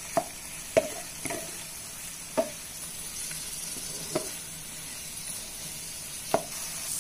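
A spatula stirring pieces of chicken through a thick honey-garlic sauce in a nonstick frying pan. The sauce sizzles steadily, and the spatula knocks sharply against the pan about six times at uneven intervals.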